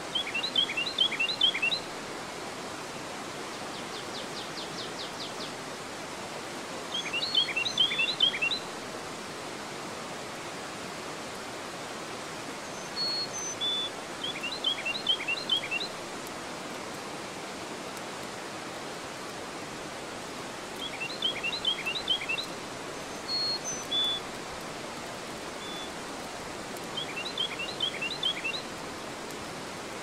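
Water rushing steadily over a low dam. Over it, a songbird sings a short phrase of quick descending notes about every six or seven seconds, five times in all, louder than the water. A few single high chirps come between the phrases.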